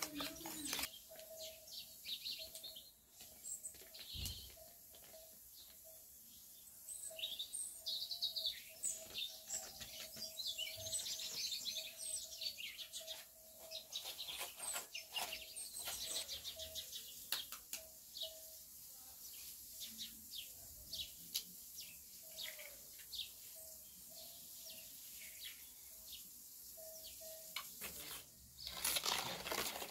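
A spoon and a fork clinking and scraping in shallow metal bowls as eggs are whisked, a run of light clicks, with birds chirping in the background. A louder rush of noise comes near the end.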